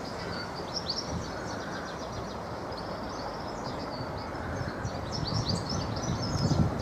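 Small birds chirping and twittering in quick runs of short high notes over a steady low rumble of background noise, which grows louder near the end.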